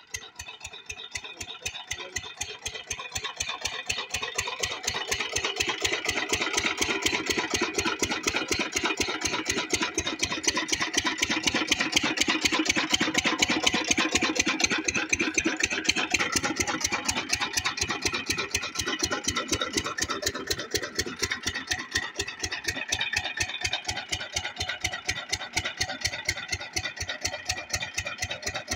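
Kranti single-cylinder diesel pump-set engine running steadily and driving a water pump, with an even, rapid chugging beat. It grows louder over the first few seconds, then holds steady.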